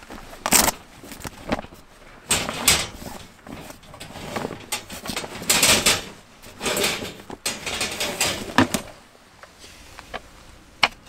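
Wooden folding camp stand being unfolded and set up by hand: a run of irregular wooden knocks, clacks and rustles, with one sharper knock about eight seconds in and a click near the end.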